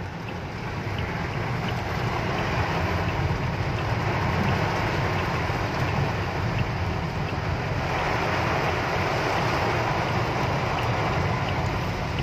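Heavy rain falling on a moving car, heard from inside the cabin: a steady rushing hiss that builds over the first couple of seconds and then holds.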